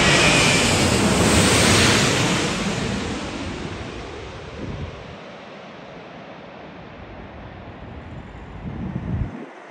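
Twin-engine widebody jet airliner passing low overhead on landing approach: jet engine noise loudest in the first two seconds, then fading steadily as it moves away toward the runway. Wind buffets the microphone.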